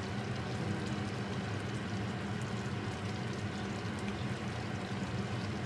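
Thick tomato-sauce chicken stew bubbling at a simmer in a pot, with faint small pops, over a steady low hum.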